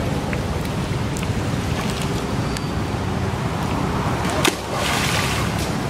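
Monkeys swimming in a pond, with steady low wind rumble on the microphone. Near the end a sharp knock is followed by about a second of splashing water.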